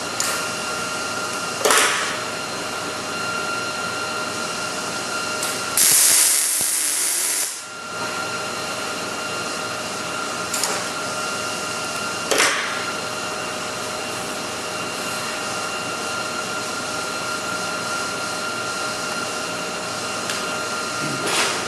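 A short MIG tack weld from a Millermatic 211: one sizzling burst of about a second and a half, about six seconds in. A steady hiss and hum run underneath, with a few short clicks.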